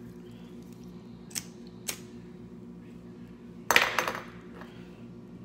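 Small hand-held lighter being flicked to light a cigarette: two light clicks, then a louder cluster of clicks about four seconds in, over a steady low hum.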